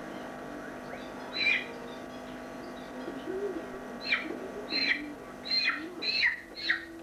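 A bird giving short, sharp calls that drop in pitch: one about a second and a half in, then a quick run of about five from about four seconds in.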